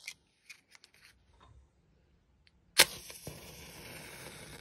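A few faint clicks, then a sudden loud swoosh-like hit that settles into a steady hiss for about two seconds and cuts off near the end: an editing sound effect for the title appearing.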